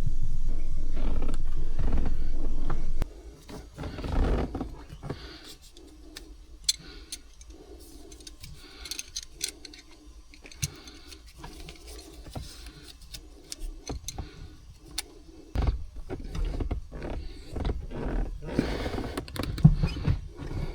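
A bench buffing wheel's motor runs with a steady low hum that cuts off suddenly about three seconds in. Then come scattered light clicks and small metal knocks as the parts are handled.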